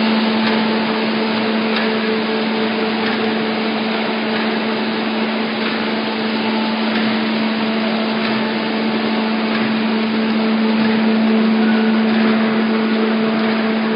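ZD 430B paper bag making machine with inline flat-handle unit running in production: a steady motor hum under dense, continuous mechanical clatter, with faint ticks repeating about every second and a quarter.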